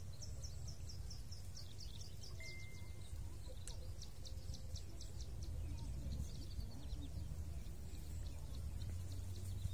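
A bird calling in rapid series of short descending high notes, about five a second, pausing briefly and then fading out after about six seconds. A short steady whistle comes about two and a half seconds in, over a low steady rumble.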